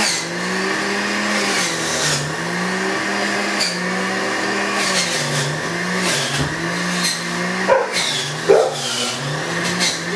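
Electric juicer motor running as carrots are fed in. Its hum dips in pitch and recovers over and over as each piece loads it, with a couple of louder knocks or crunches near the end.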